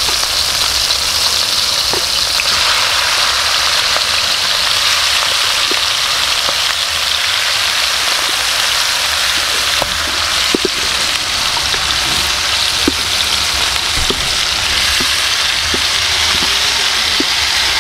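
Food frying in hot oil: a steady, loud sizzle with small pops and crackles scattered through it.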